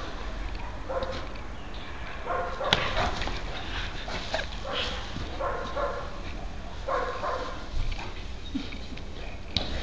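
Harlequin Great Dane giving several short play barks and yelps while wrestling. There is one sharp click a little under three seconds in.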